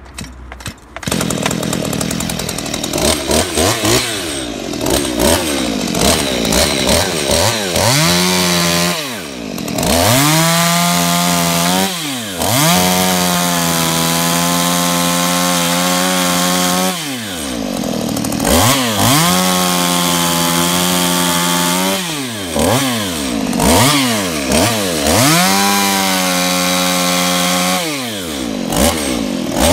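STIHL MS192T 30.1 cc two-stroke top-handle carving chainsaw catching about a second in and idling with throttle blips. It is then revved repeatedly to full throttle while cutting through wood, dropping back briefly between cuts.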